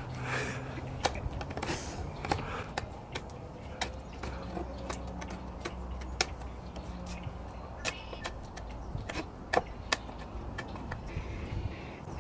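Mora Companion Heavy Duty knife working a piece of wood: irregular sharp clicks and knocks as the blade cuts and strikes into it.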